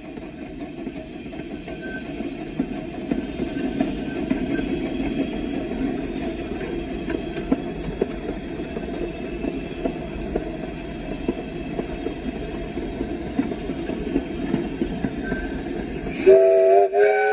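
Small steam locomotive running, heard from its cab: a steady rumble and rattle with scattered clicks from the wheels on the rails, growing louder over the first few seconds. Near the end the locomotive's steam whistle sounds several notes at once, a short toot followed by a longer blast.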